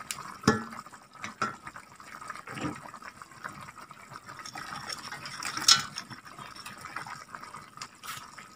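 Meat and sauce simmering in a steel cooking pot, with scattered clicks and knocks as raisins are tipped in and utensils touch the pot. The sharpest knock comes about two-thirds of the way through.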